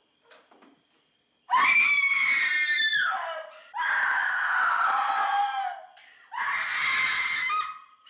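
A young woman screaming in horror: three long screams, starting about a second and a half in, each falling in pitch as it breaks off.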